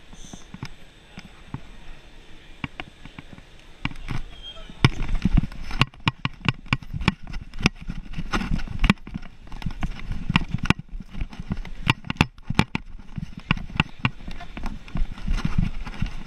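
Quick, irregular sharp clicks and knocks with low thumps, sparse at first and then thick and louder from about five seconds in: a detection dog's claws on a hard floor as it works among the luggage.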